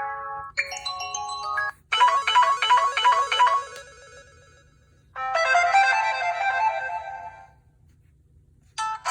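Samsung Epic 4G (SPH-D700) preset ringtones playing one after another: about five short electronic melodies, each lasting a second or two. Some stop abruptly and some fade out, with two short silent gaps between them. The one about two seconds in is a fast run of repeated notes.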